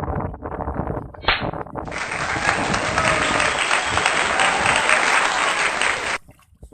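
Applause sound effect: a dense clapping crackle that starts abruptly about two seconds in and cuts off suddenly about four seconds later.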